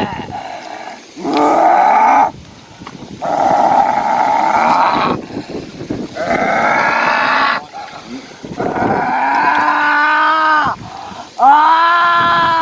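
A person's voice in a trance during a spirit mediation, making about five long, animal-like groaning cries with short breaks between them, each rising and falling in pitch.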